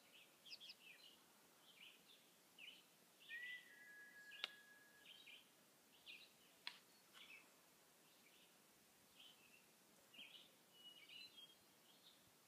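Faint birdsong: short high chirps repeating about twice a second, with one longer steady whistled note about three seconds in. Two sharp clicks near the middle.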